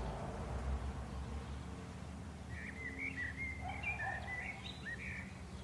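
A bird chirping in a quick run of short notes from about halfway through, over a steady low outdoor rumble.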